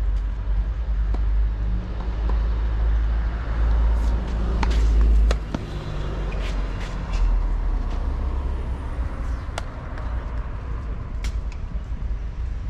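Wind rumbling on the microphone. Sharp pops of tennis balls being struck by racquets and bouncing on the hard court are scattered through it.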